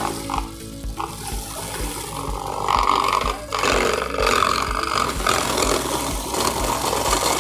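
Electric ice crusher with a 500-watt motor and twin blades running and grinding ice cubes into crushed ice, a rough, noisy grinding that grows louder about three seconds in. Background music with a steady beat underneath.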